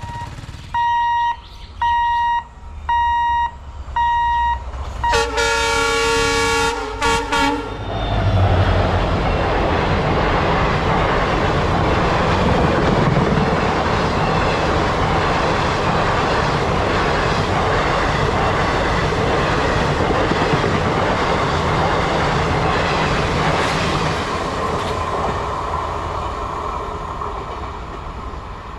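A level-crossing warning beeper sounds about once a second, then a WDP-4D diesel locomotive sounds its horn of several tones in one long blast followed by two short ones. The train then runs through the crossing, a steady loud noise of locomotive and coaches that fades away near the end.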